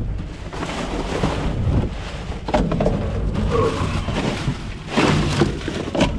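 Wind buffeting the microphone as a steady low rumble, with scattered rustles and knocks over it.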